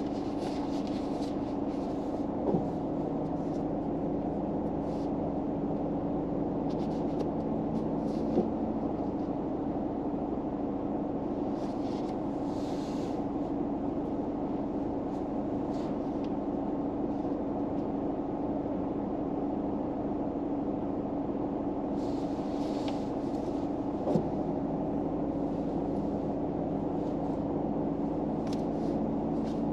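A steady low hum inside a car, with a constant drone. A few soft clicks and short rustles sound over it.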